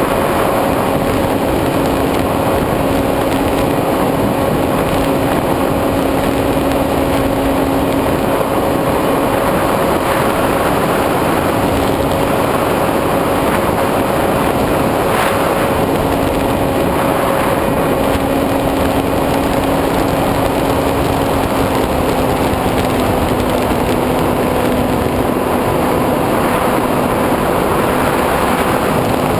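SkyWalker 1900 model plane's electric motor and propeller running at steady cruise, picked up by the onboard camera with wind rushing past it. The drone of the motor holds one pitch, then dips slightly lower a little over two-thirds of the way through.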